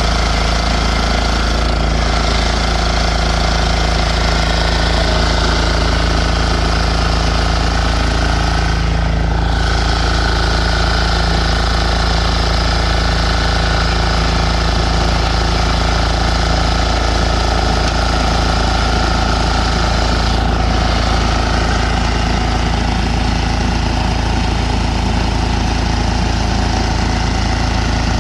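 Diesel engine of a powered lawn mower running steadily and loud.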